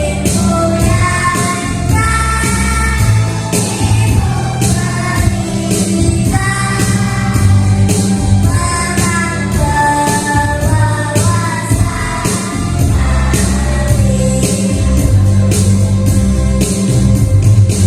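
Kindergarten children's choir singing in unison over an instrumental accompaniment with a strong bass line and a steady beat.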